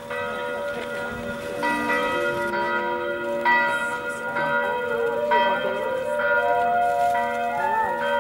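Church bells ringing in a stone bell tower: several bells struck again and again, each new stroke coming in about once a second while the earlier tones ring on and overlap.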